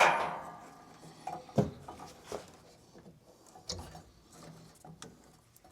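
Handling noises while a furnace pressure-switch hose is being cleared: a sharp knock with a short ringing tail at the start, then a few scattered light knocks and clicks.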